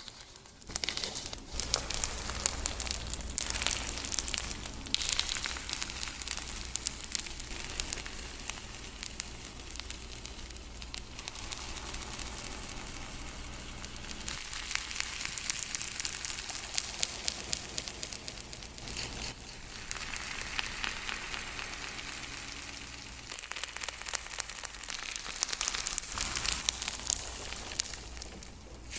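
Slime being squished and worked by hand: a dense, continuous run of sticky crackling and popping, with reverb and delay effects added, swelling and easing in waves.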